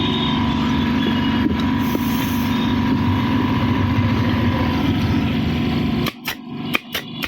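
Aerotech 30-litre oil-free air compressor running steadily with a motor hum. About six seconds in the running noise cuts off and a pneumatic stapler gun with no staples loaded is fired several times in quick succession: sharp clacks, about four a second.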